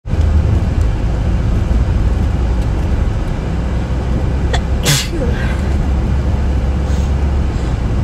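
A woman sneezes once about five seconds in: an allergy sneeze, a brief catch of breath and then a sharp burst. It plays over a loud, steady low rumble.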